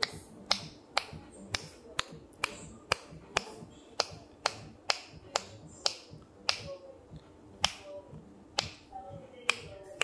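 Finger snaps at a steady pace of about two a second, each a sharp click. They are picked up by a Sony ECM-M1 shotgun microphone in its sharp-directivity mode, with the front and rear pickups split to the left and right channels.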